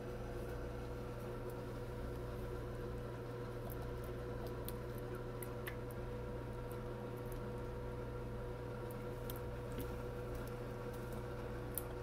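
Two cockatiels bathing in shallow water on plates: faint scattered ticks and light wet patters, more of them in the second half, over a steady low hum.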